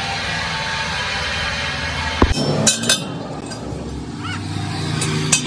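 A steady engine hum, then a few sharp metallic clinks as a hammer and tyre lever strike a steel truck wheel rim.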